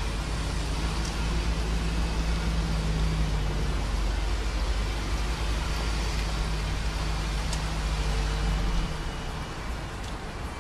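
Road and running noise from a moving vehicle, with a steady low engine hum and a heavy low rumble that drops away about nine seconds in.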